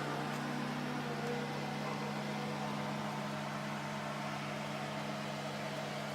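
A steady low mechanical hum holding a few fixed tones, with no sudden sounds.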